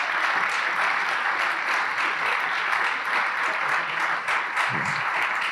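Congregation applauding steadily, a dense crowd of hand claps.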